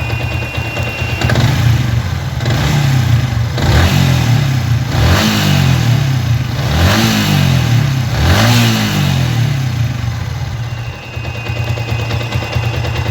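Yamaha Vixion's single-cylinder motorcycle engine idling, then revved several times in quick throttle blips, its pitch rising and falling with each, before settling back to idle near the end.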